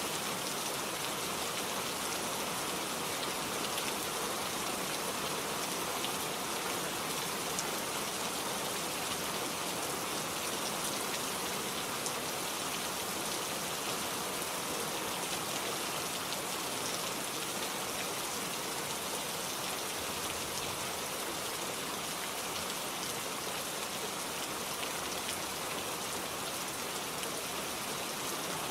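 Steady rain falling in a forest, an even hiss of drops on foliage with scattered individual drop ticks.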